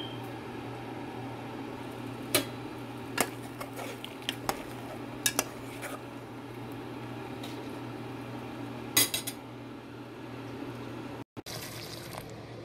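A metal spoon clinks against a pot several times while stirring boiling milk, over a steady low hum.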